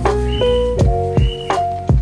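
Background music with a steady beat of about two to three strikes a second, held melodic notes between the beats, and short high chirping notes.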